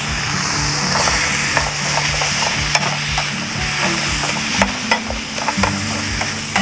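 Chopped chillies, shallots and Thai herbs sizzling as they are dry-roasted in a small camping pan, with a metal spatula scraping and tapping against the pan many times as they are stirred.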